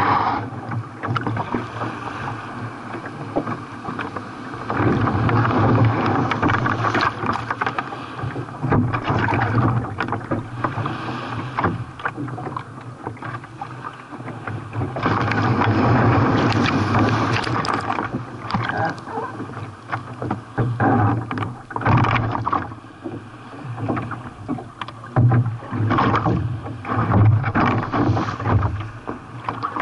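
Sea water rushing and splashing around a kayak in surf, with many short splashes and louder surges that swell and fade every few seconds.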